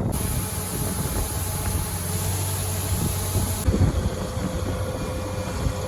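Engine of heavy farm machinery, a combine or tractor at corn harvest, running steadily with a low rumble and a constant hum; the sound changes abruptly about two-thirds through.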